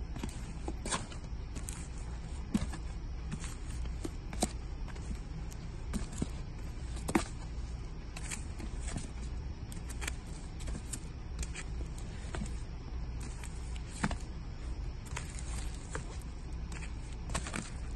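Vinyl LP record jackets, several in plastic sleeves, being flipped through by hand in a rack: irregular clicks and taps as the sleeves knock against one another, over a steady low hum.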